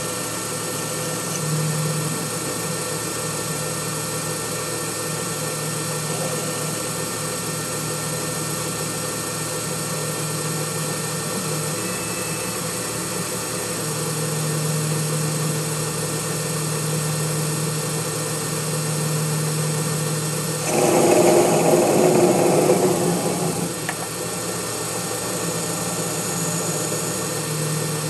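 Intelitek Prolight benchtop CNC lathe running with a steady spindle-motor hum. About 21 seconds in, a louder cutting noise lasts roughly two seconds as the parting tool cuts the finished pull stud off the bar stock.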